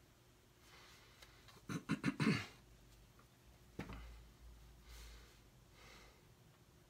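A person breathing softly, broken about two seconds in by a quick run of four short throaty sounds, with a single sharp click a little before the four-second mark.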